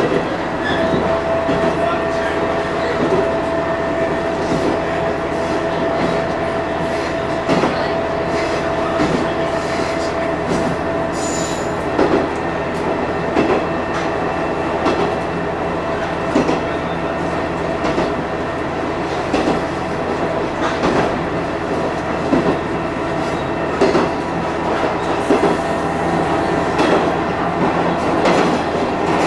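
Diesel railcar running along jointed track, heard from beside the driving cab: a steady running drone with wheels clicking over rail joints every second or two. A thin squeal from the wheels on the curve runs through the first several seconds, then fades.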